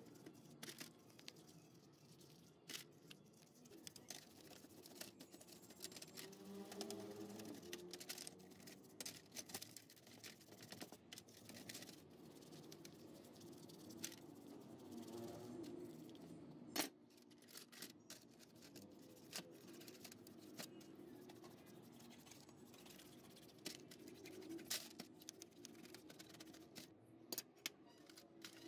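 Faint scrubbing and scraping of a brush on rusty sewing-machine parts in a metal tray, with scattered light clicks and clinks of metal parts being handled. There is one sharper clink a little past halfway.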